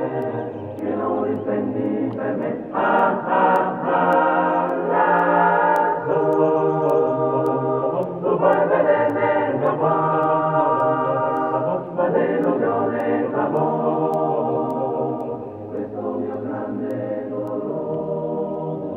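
Background choral music: voices singing long, held chords that change every couple of seconds.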